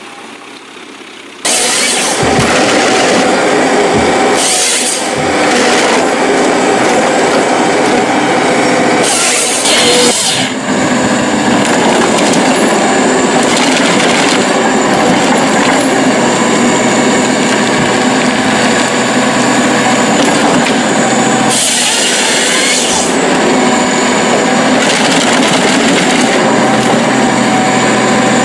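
A forestry harvester head felling and processing a tree. The machine's engine and hydraulics run steadily, broken by several brief bursts of the head's chain saw cutting through the stem and branches cracking as it is delimbed. The loud machine noise starts abruptly about a second and a half in.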